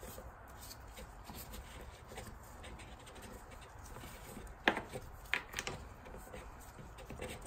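Faint rubbing and handling of gloved hands unscrewing a plastic end piece from a used diesel fuel filter held in a bench vise, with a sharp click a little past halfway and a second, softer one just after.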